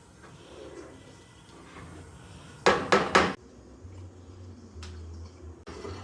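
Kitchen clatter of cookware being handled: three quick, loud clanks about halfway through, then a couple of lighter clicks.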